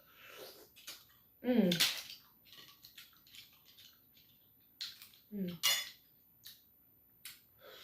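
Mussel shells and utensils clinking and scraping against a dish during eating, in short separate clicks, with a brief voiced sound falling in pitch twice, about a second and a half and five seconds in.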